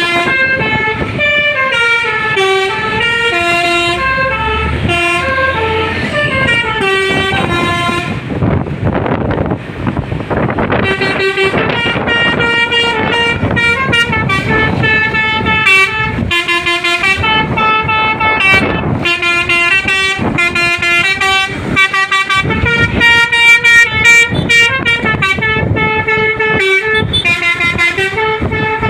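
Bus 'telolet' horn, a set of multi-tone air horns, playing a melody of stepped, sustained notes over and over. About eight seconds in, the horn gives way for a few seconds to a noisy rush of vehicle sound, then the tune starts again.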